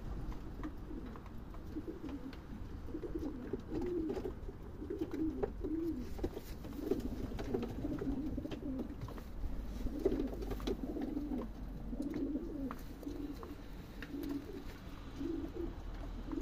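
Pigeons cooing, a low warbling coo repeated over and over.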